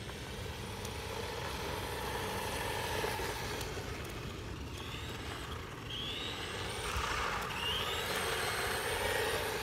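Ingqu SL-119A 1/12-scale RC monster truck driving on concrete, its small brushed 390 electric motor whining, with a few short rising whines as it speeds up.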